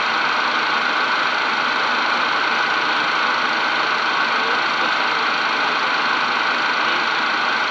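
Cockpit noise of a Cessna Citation business jet in flight: its twin turbofan engines and the airflow over the airframe make a loud, even, unchanging rush.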